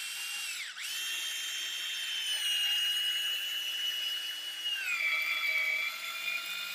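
Festool CXS 12V compact cordless drill driver driving a long wood screw into a block of wood: a steady motor whine that stops and restarts briefly about a second in. About five seconds in the whine drops to a lower pitch as the motor slows under the load of the screw going deeper.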